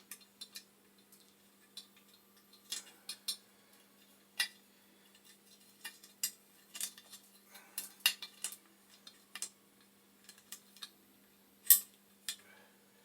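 Small metal parts and hand tools clicking and clinking as a universal pilot bracket is handled and lined up on a boiler: irregular sharp taps, the loudest about three-quarters of the way through.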